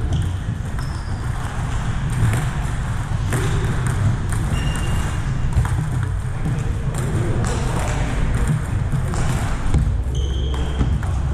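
Table tennis balls clicking off paddles and tables in a large, echoing gym hall, over a steady low hum, with a few short high squeaks.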